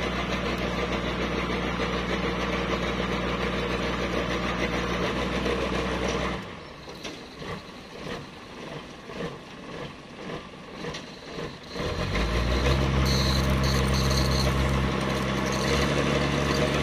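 Steady drone of a sand-dredging boat's engine running at the river's sand-mining spot. It drops away for about five seconds in the middle, then comes back as a steady hum.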